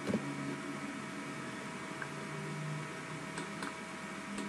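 Quiet room tone: a steady electrical hum over faint hiss, with a soft knock right at the start and a few faint clicks later on.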